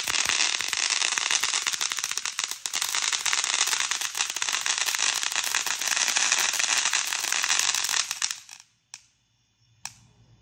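Ground fountain firework spraying sparks: a loud, steady hissing crackle that dies away after about eight seconds. Two faint pops follow near the end.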